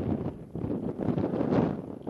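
Wind buffeting the microphone: a gusting, rumbling rush that swells and dips, strongest about three quarters of the way through.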